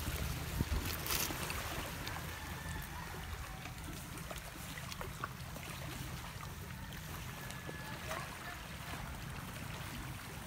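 Steady low rumble of wind on the microphone with surf washing on a pebbly shore, with a few soft clicks in the first second.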